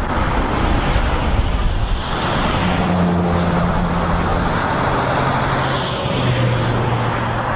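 Double-stack container freight train rolling past: a steady rush of wheels on rail, with a low hum coming in about two and a half seconds in and settling slightly lower near the end.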